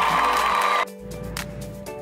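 A cartoon crowd of children cheering, with a held high note, cutting off suddenly about a second in; then soft background music.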